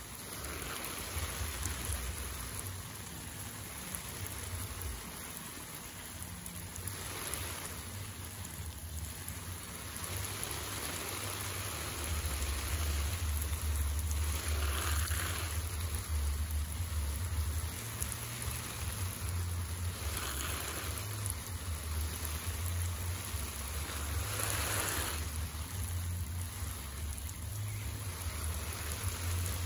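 Steady hiss of water like rain falling, with a low rumble underneath that grows louder about twelve seconds in.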